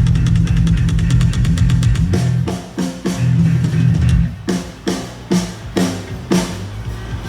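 Rock band playing on stage with electric guitar, bass and drum kit. A fast, driving passage with heavy bass gives way about two seconds in to a series of separate accented hits, roughly two a second.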